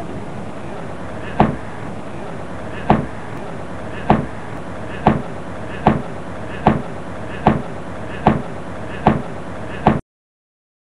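A series of ten sharp knocks over a steady background noise, about a second and a half apart at first and coming faster until they are under a second apart; then all sound cuts off suddenly just before the end.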